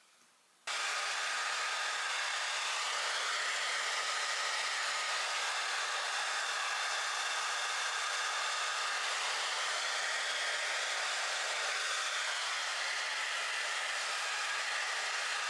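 A small electric appliance running with a steady rushing, blowing noise that starts abruptly about a second in.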